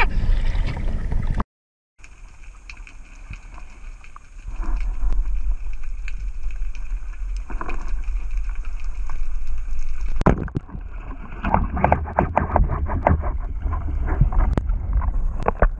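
Wind and water splashing on a surface microphone for a second or so, then a brief dropout. After that, muffled underwater sound through a camera housing: a low rumble with faint steady high whines, a single sharp crack about ten seconds in, and a run of clicks and knocks after it.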